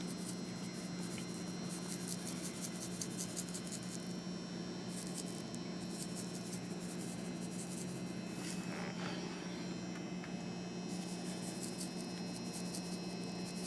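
Steady low hum of a room fan, with faint light ticking and pattering as a seasoning rub is shaken onto tuna steaks.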